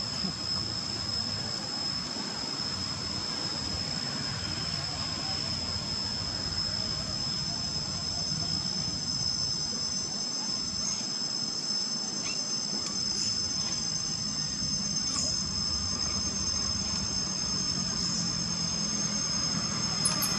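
Insects droning a steady high-pitched tone, with a fainter second tone above it, over a low steady background rumble.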